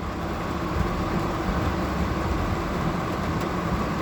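Steady noise inside a car driving through a heavy downpour: rain on the car and tyres on the wet road blend into an even rush over a low rumble.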